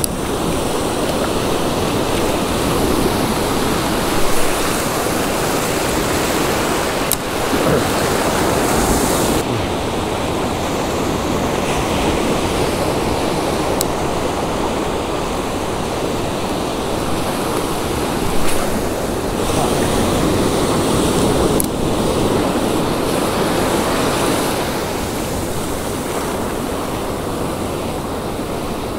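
Ocean surf: waves breaking and foamy water washing up the sand close by, a steady rush with a few brief clicks.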